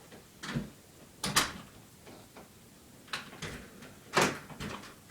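A handful of short, sharp knocks and clicks at uneven gaps. The two loudest come about a second and a half in and about four seconds in.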